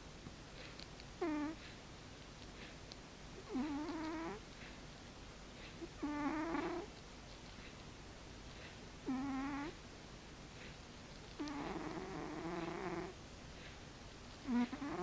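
Domestic cat snoring in its sleep: a pitched snore on each breath, six snores about two and a half seconds apart, one of them longer than the rest.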